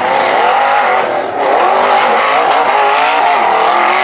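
Rock bouncer buggy's engine revving hard under full load on a steep dirt hillclimb, its pitch wavering up and down as the throttle is worked, with a brief drop about a second and a half in.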